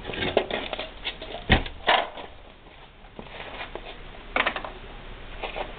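Scattered knocks, clicks and clatter of hand tools and metal parts being handled during repair work. There is one sharp knock about a second and a half in and a short run of clicks past four seconds.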